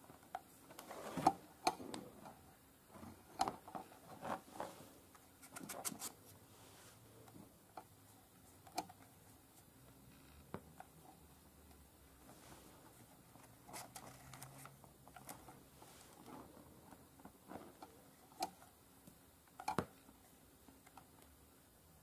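Light plastic clicks and short scrapes from a 3D-printed hairdryer brush attachment being handled, its rows of brush pins slid in and out on the movable base. The sounds come in scattered clusters, with the loudest clicks about a second in and near the end.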